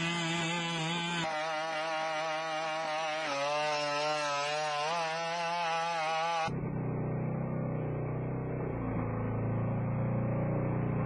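BigDog robot's two-stroke engine running its hydraulic pump: a loud buzzing drone whose pitch wavers up and down. About six and a half seconds in it changes abruptly to a duller, lower-pitched take of the same running engine.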